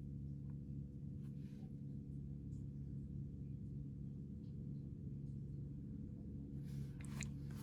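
Steady low electrical hum with a few faint clicks of small pistol parts being handled. A short cluster of clicks and rattles comes about seven seconds in.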